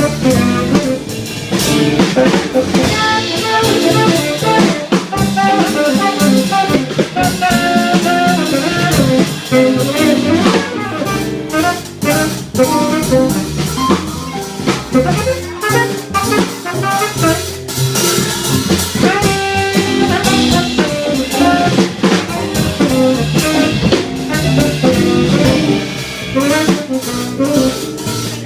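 A jazz quartet playing live: drum kit keeping busy time under piano and a lead horn line.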